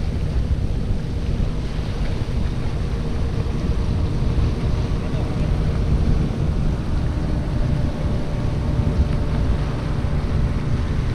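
Wind buffeting the microphone over gentle surf, with the steady hum of a passing motorboat's engine that becomes clearer about halfway through.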